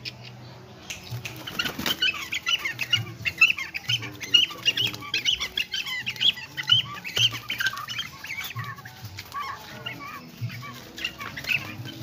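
Tame cormorant giving a rapid, continuous run of high, squeaky chattering calls, begging for the food held out above it.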